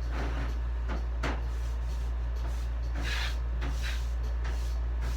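Scattered rustling and scraping of packing material being handled as a heat press is unboxed, a few short strokes over a steady low hum.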